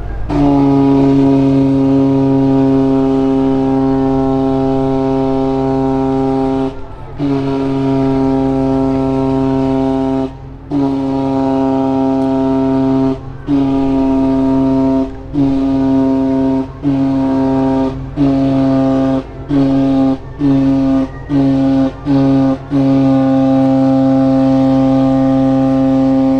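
A Project 301 river cruise ship's horn sounding a farewell departure signal, hoarse and raucous with age. It gives two long blasts, then a dozen or so blasts that get shorter and quicker, then a long final blast. The horn holds one steady pitch throughout.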